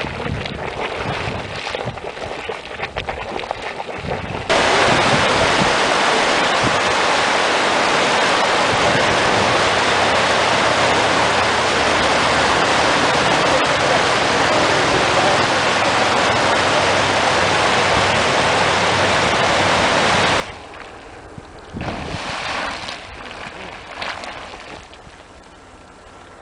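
A small hot spring boiling and splashing in its sinter crater, then a loud, steady rush of hot spring runoff cascading down a sinter bank into a river. The rush stops abruptly about twenty seconds in, leaving quieter outdoor noise with a couple of brief louder patches.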